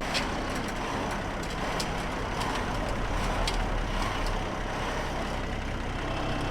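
Diesel tow truck engine running steadily, with scattered sharp clicks and light clanks over it.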